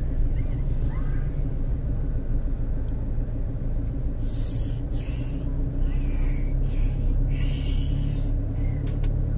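Low, steady rumble of a car driving on a dirt road, heard from inside the cabin. A few short hisses come in about halfway through.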